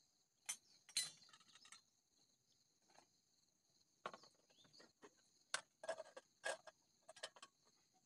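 Light clinks and taps of a metal spoon against cooking pots and dishes, a dozen or so short, irregular strikes, over insects trilling steadily.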